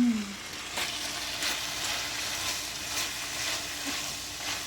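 Beef and onions sizzling steadily in a frying pan as they are stirred, with a few sharp clicks of the utensil against the pan.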